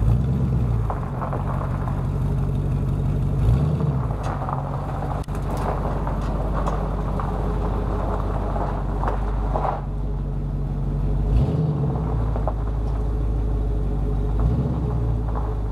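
Hummer H2's 6.0-litre V8 rumbling through glasspack mufflers as the truck creeps slowly away, the engine still cold from its start, with a few short surges of throttle along the way.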